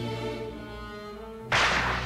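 Orchestral music with held notes on bowed strings, broken about a second and a half in by a sudden loud crash that rings away over half a second.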